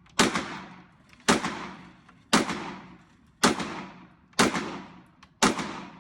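Six gunshots fired at an even pace, about one a second, each followed by a short echoing decay.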